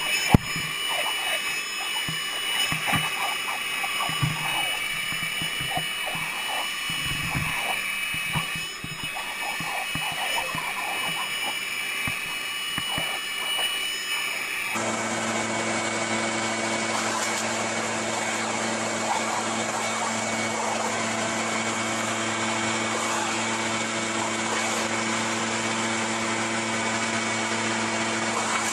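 Leaf blower running steadily, its nozzle knocked again and again as a dog bites and snaps at it. About halfway through the sound changes abruptly to another leaf blower with an even, lower hum.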